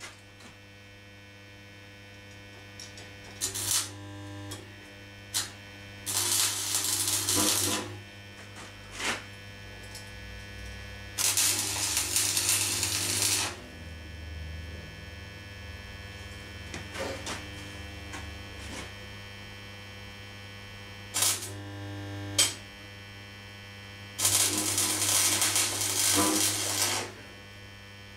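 Electric arc welding: three runs of welding-arc crackle, each about two to three seconds long, and several brief zaps of a fraction of a second in between, over a steady electrical hum.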